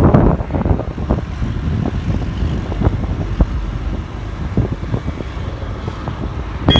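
Wind buffeting the microphone of a moving motorcycle, a low, fluttering rumble mixed with the bike's road noise, easing slightly in the second half.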